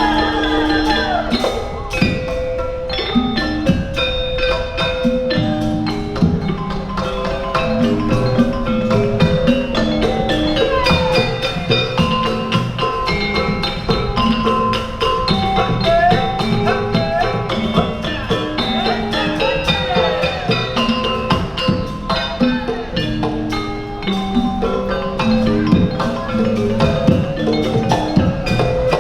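Sundanese gamelan degung ensemble playing: struck bronze metallophones and gongs ringing out a steady melody, with drum strokes and a gliding melodic line over them.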